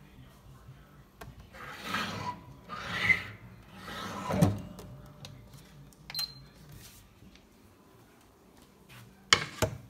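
Scraping and rubbing of things being handled at a toaster oven, three times in a row, the last ending in a thump as the oven door is pulled open about four seconds in. A single metallic clink comes a couple of seconds later, then two sharp knocks near the end.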